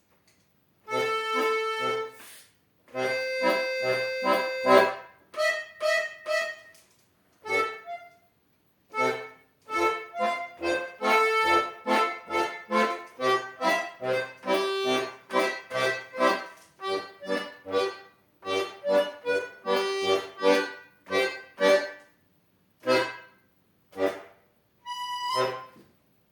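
Accordion playing a lively piece in short, detached notes and chords over bass notes, with brief pauses between phrases, ending on a last phrase near the end.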